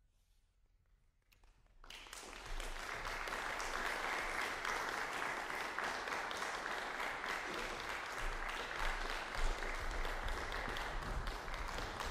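A near-silent pause, then audience applause that breaks out about two seconds in and continues steadily.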